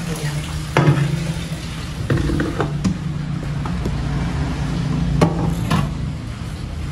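Boiled apple snails and their hot cooking liquid poured from a pot into a plastic colander in a stainless-steel sink, with the shells clattering and the pot knocking in a few sharp clicks about a second in, around two to three seconds, and again past five seconds. A steady low hum runs underneath.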